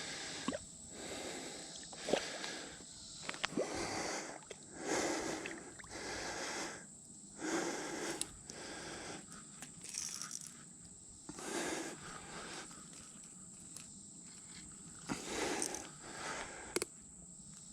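A man panting heavily, with loud breaths every second or two and a few sharp clicks among them: he is out of breath from the exertion of fighting a big fish.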